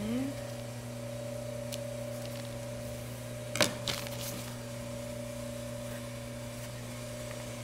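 Industrial Pfaff sewing machine's motor humming steadily, with no stitching rhythm, and one sharp click about three and a half seconds in.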